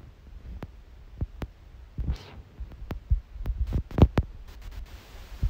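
A hand tapping the rim of a plastic sieve full of flour to sift it: a run of irregular soft taps and thumps, with a louder knock about four seconds in.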